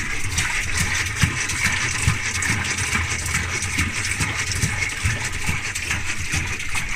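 Whirlpool Zen washing machine running: a steady low motor hum under a continuous rush of water in the drum.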